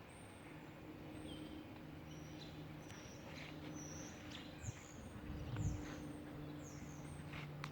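Small birds chirping over and over, short high chirps and quick falling notes, over a low steady hum. A brief low rumble comes about five and a half seconds in.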